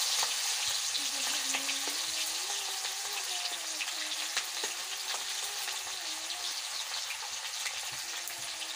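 Chopped onion sizzling and crackling steadily in hot mustard oil in a metal kadhai, stirred with a metal spoon.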